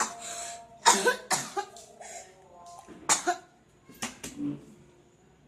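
A person coughing in short, hacking fits of two or three coughs, with weak strained sounds between them. The coughs are a staged, exaggerated imitation of someone coughing on their deathbed, and they stop after about four and a half seconds.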